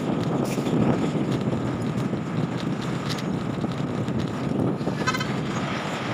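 Vehicle and road noise with wind buffeting the microphone while riding along a road. A short, rapid beeping sounds about five seconds in.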